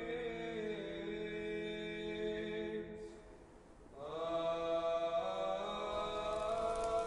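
Unaccompanied Orthodox church chanting: long held notes, with a short break about three seconds in before the next phrase starts.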